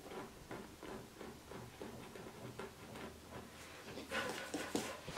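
Faint scratching and small ticks of tweezers picking at and peeling the flaking film off a faux-leather boot. Louder rustling scrapes come about four seconds in, as the boot is handled in gloved hands.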